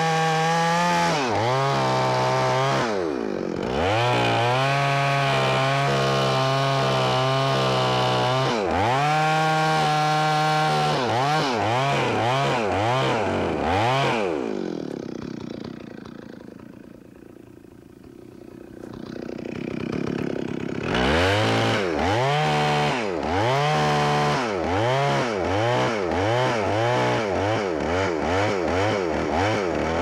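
Two-stroke chainsaw cutting into the trunk of a large pine on a felling back cut. The engine runs at high revs with its pitch sweeping down and back up as the chain loads in the wood. About halfway through it drops to a quiet idle for several seconds, then revs up again with quick dips in pitch about once a second.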